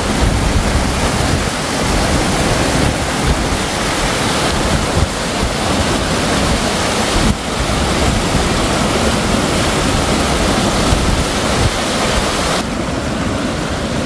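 Fast mountain stream rushing over rock cascades, a loud steady whitewater noise with a deep rumble under it. The sound shifts abruptly about seven seconds in and again near the end, when the hiss turns duller.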